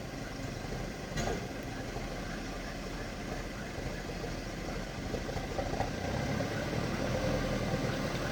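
Heavy vehicle's diesel engine running steadily at idle.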